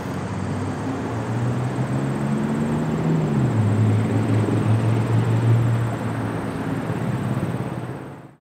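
2014 Yamaha YZF-R6's inline-four engine running steadily through a GYTR carbon slip-on exhaust, its pitch dropping slightly about three seconds in as it settles. The sound fades out just before the end.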